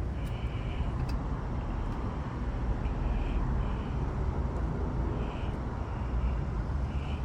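Air conditioner's outdoor condensing unit running steadily, compressor and fan humming, while it is being charged with refrigerant and its pressure is climbing.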